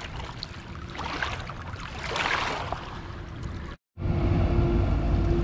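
Water lapping and splashing at the rocky bank as a released flathead catfish swims off. After a sudden cut about four seconds in, a steady low engine drone with a constant hum: a towboat's diesel engines pushing barges.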